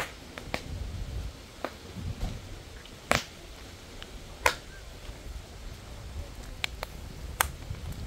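Wood fire crackling: irregular sharp snaps and pops, with two louder cracks near the middle, over a low rumble.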